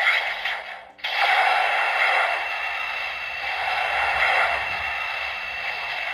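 Electronic beam sound effect from Hikari's Knight Brace toy speaker, played on a short press for the Knight Shoot attack. A brief burst comes first, then about a second in a long, loud, noisy blast with a steady high tone running through it.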